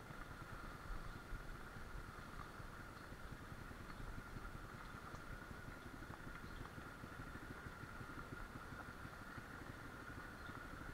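Small pit bike engine running at a steady speed, with a low rumble and a steady whine that holds one pitch.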